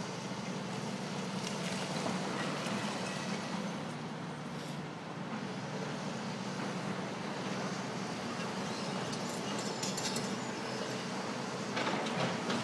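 Diesel engines of tracked excavators running steadily, with brief clatters of rubble about ten seconds in and again near the end.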